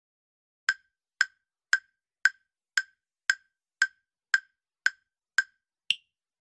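Countdown timer sound effect: ten short pitched ticks, about two a second, then a single higher tick as the count reaches zero.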